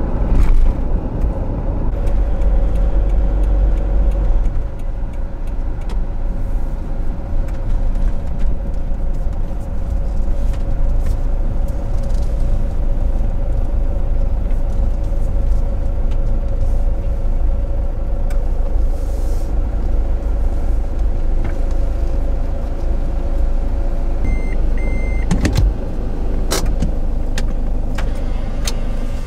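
Vantech Cordo Leaves camper van driving, heard from inside the cab: a steady low road-and-engine rumble with a constant hum. Near the end come two short high beeps and a few sharp clicks as the van pulls in.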